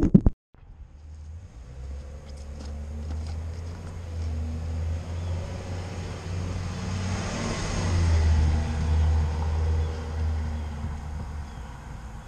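A road vehicle going by on the street, its engine and tyre noise growing to a peak about two-thirds of the way through and then fading, over a steady low engine hum.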